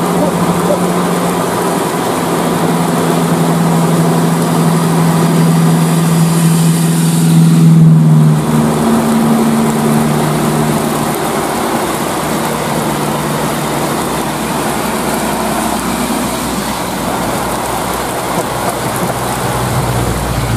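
Traffic in heavy rain: a steady hiss of rain and tyres on the wet road, with a truck engine's low drone swelling as the truck passes close about eight seconds in, then fading.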